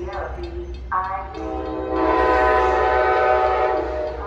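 Approaching locomotive's multi-note air horn sounding a sequence of blasts: a short blast about a second in, then a long steady blast that stops near the end.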